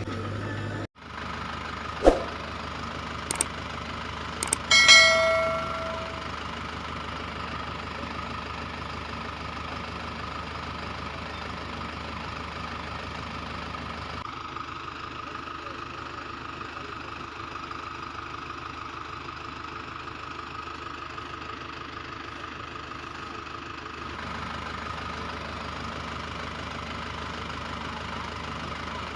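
An engine idling steadily, with a few sharp clicks and a short bell-like ding about five seconds in.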